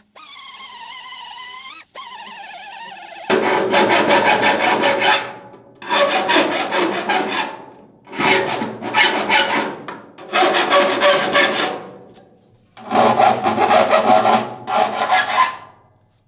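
Power tool working on sheet steel in five loud rasping bursts of about two seconds each, each one trailing off as the tool eases off. Before that comes a fainter wavering whine lasting about three seconds.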